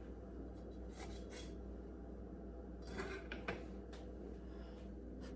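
Cutlery scraping and clicking against a plate in two short bursts, about a second in and again about three seconds in, over a steady low room hum.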